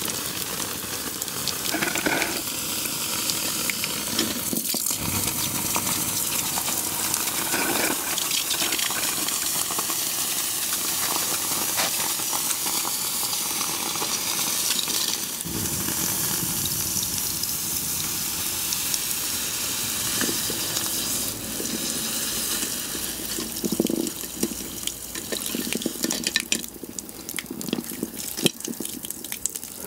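Water poured onto a hot brass-and-steel artillery shell fuse, the metal hissing and sizzling steadily as the water boils off in steam.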